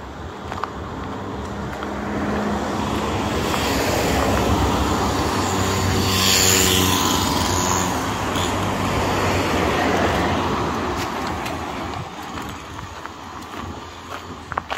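A motor vehicle's engine and tyres passing on the road. The sound builds, peaks about halfway through and fades away.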